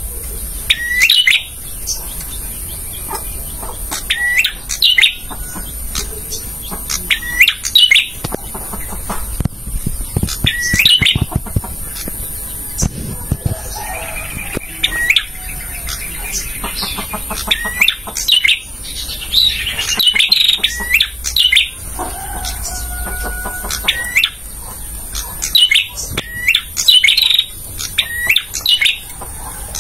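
Male prenjak, a small prinia warbler, calling: loud, sharp chirps repeated in quick clusters every second or two.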